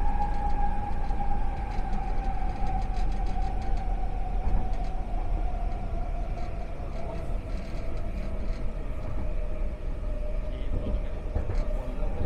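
Expo Line SkyTrain car running over low rail rumble. Its linear induction motor whine falls slowly and steadily in pitch as the train slows.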